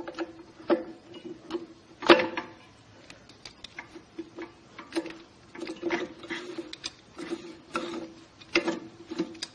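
Clutch drum of a Nissan RE4R01B automatic transmission being turned and lowered into the case, its teeth clicking and knocking irregularly against the clutch plates as they are brought into alignment. The loudest knock comes about two seconds in.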